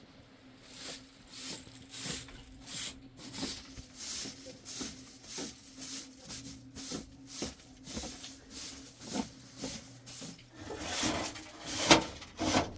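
Rhythmic rasping strokes, about two a second, growing longer and louder near the end, over a faint steady low hum.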